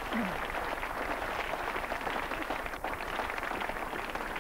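Studio audience applauding: a steady patter of many hands clapping.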